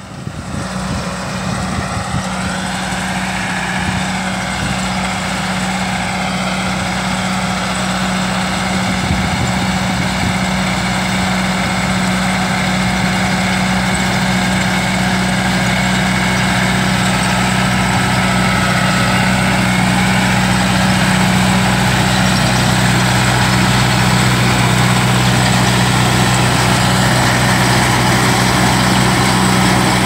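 Tractor diesel engine running steadily while powering a trailed chana harvester, with the harvester's machinery whirring along with it; the sound grows gradually louder.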